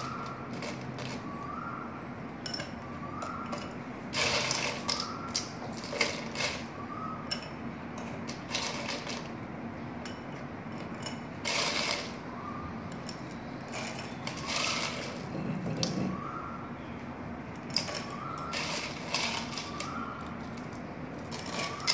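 Ice cubes picked out of a plastic bowl and dropped one by one into a glass, clinking and knocking at irregular intervals over a steady low hum.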